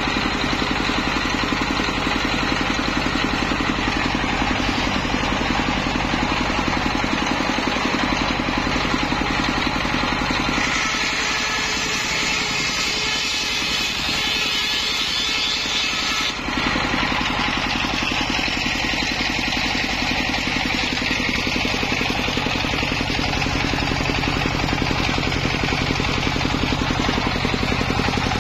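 Homemade belt-driven circular saw, powered by a stationary single-cylinder diesel engine, ripping a petung bamboo culm lengthwise: the engine runs steadily under load while the blade cuts. For several seconds around the middle the low engine beat eases and a harsher hiss comes up, then the earlier sound returns.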